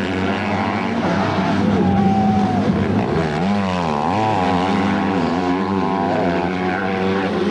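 Motocross bike engines racing on the track, revving hard with the pitch swinging rapidly up and down a few seconds in as the riders work the throttle over the jumps and ruts.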